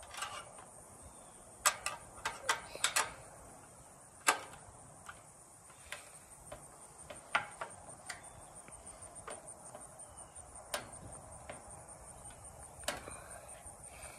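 Scattered metallic clicks and clinks of a hand wrench on the nuts of a U-bolt as they are tightened, with a quick cluster of the loudest about two to three seconds in. A steady, high pulsing trill of insects runs underneath.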